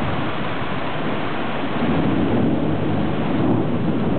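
Thunder rumbling over steady rain, the rumble growing louder about halfway through.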